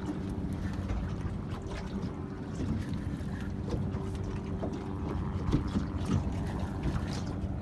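Wind buffeting the microphone on a small fishing boat, over a steady low hum, with a few light clicks scattered through.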